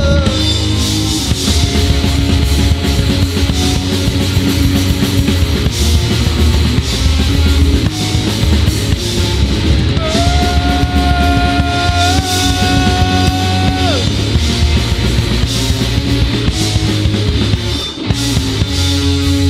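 Live punk-rock band playing, heard as a mono mixing-desk feed: distorted electric guitars, bass and drum kit. About ten seconds in, one long high note is held for about four seconds.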